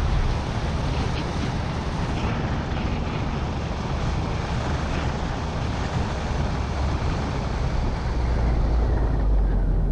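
Car driving along a country road: steady engine and tyre noise with a deep rumble, which grows stronger near the end.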